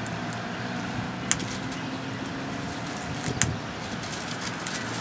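Steady road-traffic noise from passing cars, with two short sharp clicks.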